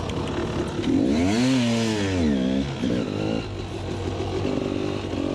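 Two-stroke enduro motorcycle engine pulling away: revved up and back down about a second in, blipped again near three seconds, then running steadily at lower revs.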